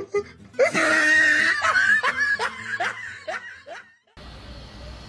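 A person laughing hard: a loud, wheezy, high-pitched burst, then a run of short laughs falling in pitch. About four seconds in it cuts off and a steady low background noise takes over.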